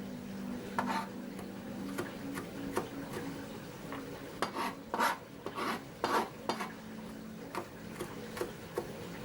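High-carbon steel pocket-knife blade slicing food, with scattered clicks of the edge meeting the board and a run of louder cutting strokes in the middle.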